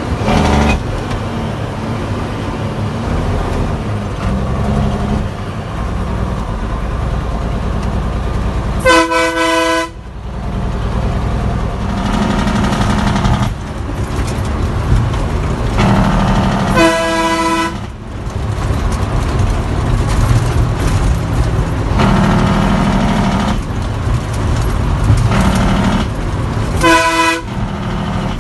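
Heavy truck's diesel engine running on the move, heard from inside the cab, with three blasts of the truck's horn, each about a second long and spread several seconds apart; the last one is shorter.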